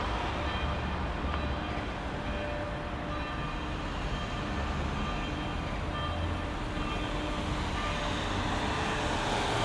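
Train running along the track: a steady rumble and rolling noise with a few faint, brief tones over it.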